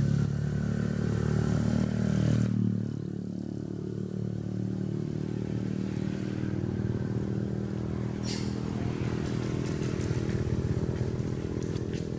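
Motorcycle engine running on the road, louder for the first two and a half seconds and then quieter and steady. A short click about eight seconds in.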